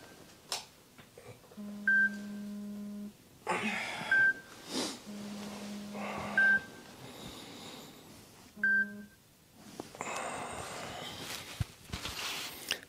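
Smartphone alarm going off: a short high beep about every two seconds, alternating with a low steady buzz, until it stops about nine seconds in. Bedding rustles as the sleeper moves.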